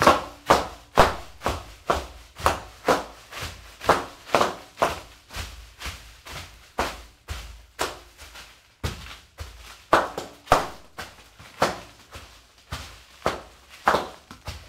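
Bare feet stepping and stamping on a pile of foil-wrapped fortune cookies, a steady run of sharp steps about two a second.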